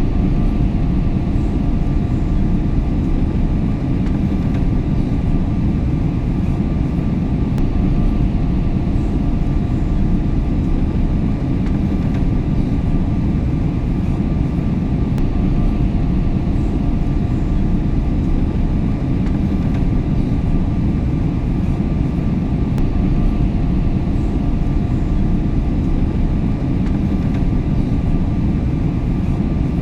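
Airplane cabin noise in flight: a steady, even low rumble with a couple of faint steady hum tones above it.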